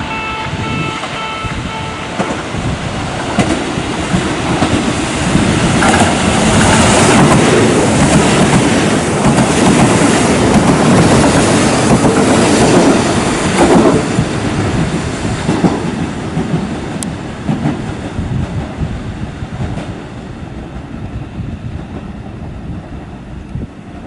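KiHa 75 diesel multiple unit passing through a station at speed without stopping: a rising rush of engine and wheel noise with rail-joint clacks, loudest in the middle, then fading away. A repeating electronic warning tone beeps for the first couple of seconds.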